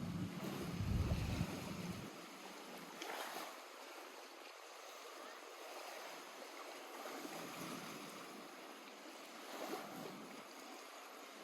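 Lake water lapping at the shore: a steady soft wash with a few gentle swells. A low rumble sits under it for the first two seconds.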